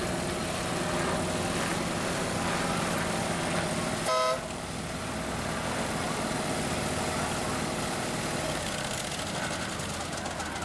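Ride-on miniature diesel-outline locomotive running past with a steady motor hum, and one short horn toot about four seconds in.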